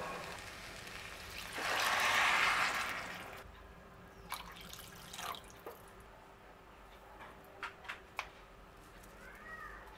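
Water poured into a cooking pot for about a second and a half, followed by a few light clicks.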